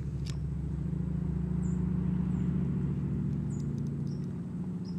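Low engine hum of a passing motor vehicle, swelling in the middle and easing off near the end, with a few faint high chirps.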